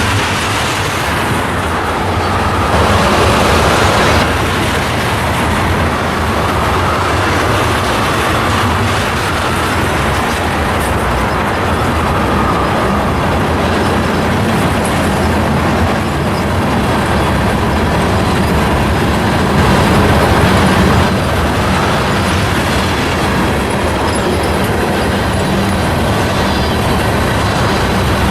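A freight train's cars rolling past, steel wheels running on the rails in a steady, loud rumble.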